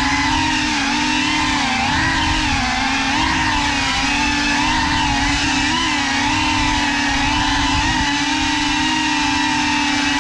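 GEPRC Cinelog 35 FPV drone's brushless motors and propellers whining in fast flight, heard close up from the drone's onboard camera. The pitch wavers up and down continually with the throttle.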